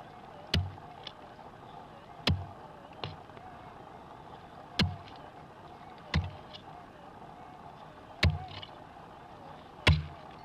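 Hand pick striking into hard, stony red soil: seven blows, roughly one every one and a half to two seconds, each a sharp click with a dull thud, with a few lighter ticks between them. A faint steady wavering tone runs underneath.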